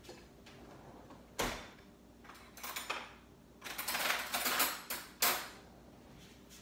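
Kitchen drawer and metal cutlery being rummaged to fetch a spoon: a knock, then a rattling clatter of cutlery, ending in a sharp knock about five seconds in.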